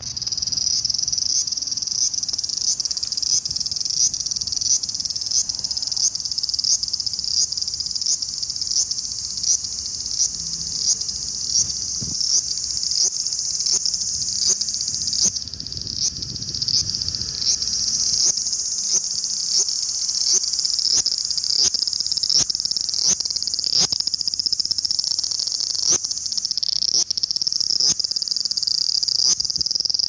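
Large brown cicada (aburazemi, Graptopsaltria nigrofuscata) singing: a loud, steady, high-pitched sizzle with a regular pulse about twice a second.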